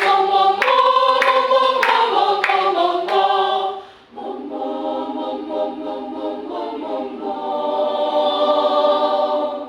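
A choir singing unaccompanied in a rehearsal vocal exercise. For about four seconds it sings a string of short, separately struck syllables, then it holds one long chord until near the end.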